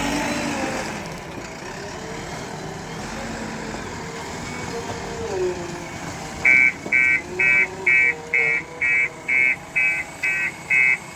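Heavy machine's engine running, then about six and a half seconds in a reversing alarm starts beeping, about twice a second, as the backhoe loader or truck backs up.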